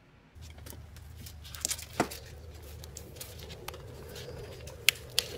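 An orange 3D-printed TPU strap is stretched around a metal can and its pegs are pushed home: handling rustles and a few sharp clicks and taps, the loudest about two seconds in. A low steady hum runs underneath.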